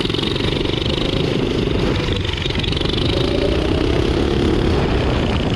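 Turbocharged Predator 420cc single-cylinder engine running under load as the drift trike is ridden, a loud, continuous engine note whose pitch wavers slightly up and down with the throttle.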